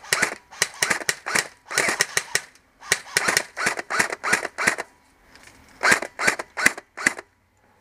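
Airsoft guns firing in rapid strings of sharp shots. The shots come in three volleys, with short breaks about three seconds and five seconds in.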